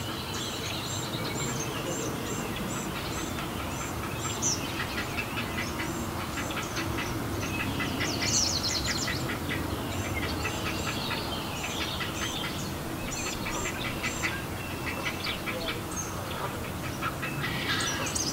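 Great blue heron chicks calling in the nest: rapid series of short, high, clacking calls that come and go throughout, thickest about eight seconds in and again near the end, over a steady low background noise.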